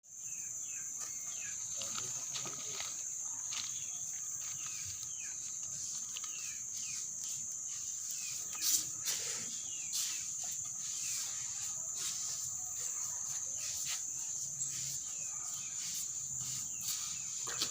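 A steady high insect trill with many short bird chirps throughout, and a few sharp clicks around the middle.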